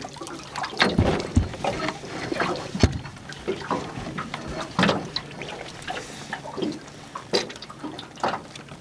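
Water splashing and trickling around a small aluminium boat as a squid is netted and lifted dripping over the side, with scattered knocks and clunks of gear against the hull.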